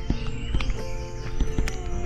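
Background music with steady held tones, with scattered light clicks and knocks over it.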